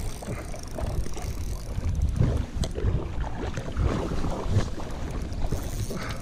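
Wind buffeting the microphone in uneven gusts, over small waves lapping at the shore.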